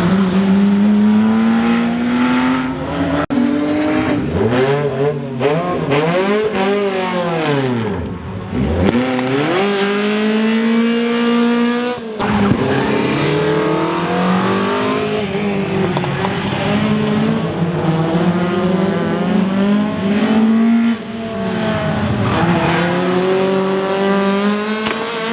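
Rally cars driven flat out, engines revving up and dropping back through gear changes, with deep swoops in pitch as cars pass close by.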